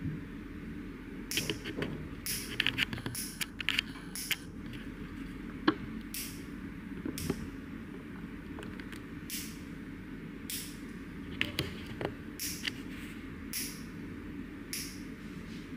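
Nail clipper snipping fingernails in crisp, sharp clicks, a quick run of them in the first few seconds, then about one a second, over a steady low room hum.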